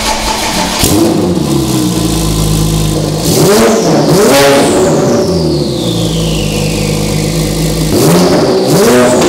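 Sports car engine running and being revved in repeated blips, the revs rising and falling several times, inside an enclosed workshop.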